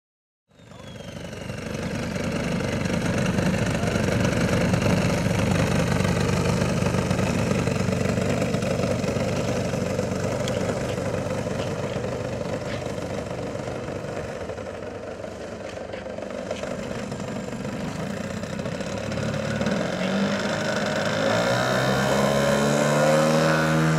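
Twin-cylinder two-stroke petrol engine of a large-scale Su-29 model aeroplane (3W-170) running steadily at low throttle, then revving up with a rising pitch in the last few seconds as the plane starts its takeoff run.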